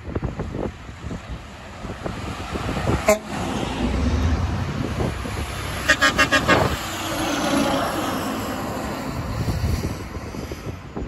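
A Sterling LT9500's single Fiamm Fultone air horn gives a quick run of about five short toots about six seconds in, over passing truck and traffic noise. A sharp click comes about three seconds in.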